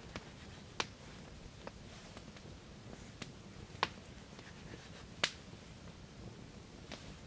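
Sparse, irregular sharp clicks and small snaps, about a dozen, the three loudest falling about a second in, near the middle and a little past it.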